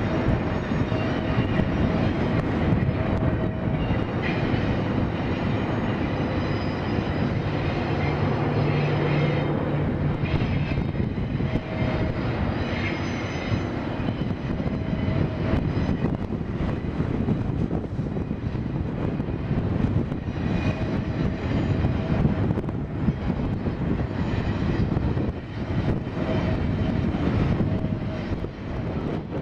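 Freight train with four diesel locomotives hauling double-stack container cars past: a loud, steady rumble of the engines and the wheels on the rails.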